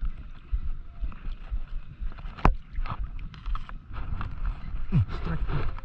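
Wind buffeting the microphone in uneven low rumbles and thumps, over water sloshing around a wading angler. There is a single sharp click about two and a half seconds in, and a short voiced exclamation near the end.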